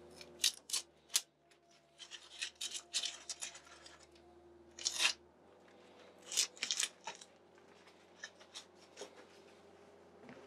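Masking tape being peeled off bare wooden boards and crumpled in the hands: a string of short rasping rips and crinkles, busiest in the first half, then sparser and quieter.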